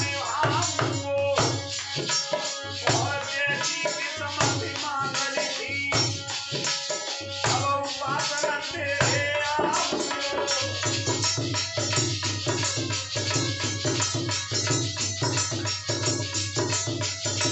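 Live Indian folk devotional music: a male voice singing over harmonium, dholak drum and jingling metal hand percussion. The voice stops about ten seconds in, and the harmonium and percussion carry on in a steady rhythm.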